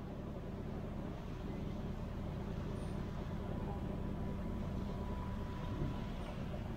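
Steady low rumble and rush of a passenger ferry under way at sea: engine drone mixed with the wash of water foaming along the hull.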